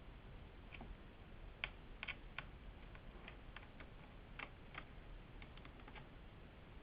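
Faint, irregular small clicks and ticks of a Phillips screwdriver turning screws out of a netbook's plastic case.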